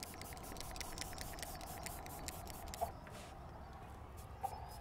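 Watercolour brush rubbing on paper in quick, light strokes, over a faint steady outdoor background hum. Two brief faint tones sound about three seconds in and near the end.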